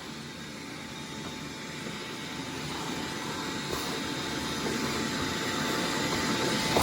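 Shop vacuum running with a steady rushing noise and a faint high whine, growing gradually louder, as plastic cutting debris is sucked out of the speaker cutout.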